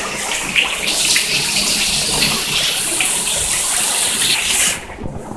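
Hailstorm: hail and rain pelting down in a dense, steady hiss full of small hits. About five seconds in it drops sharply in loudness and loses its hiss.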